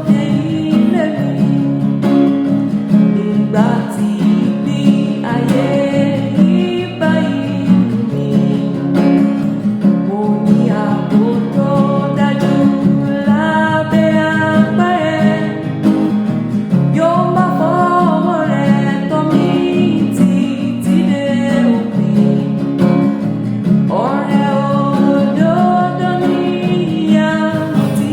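A woman singing a Yoruba hymn over a steady instrumental backing, in long phrases with a wavering melody line.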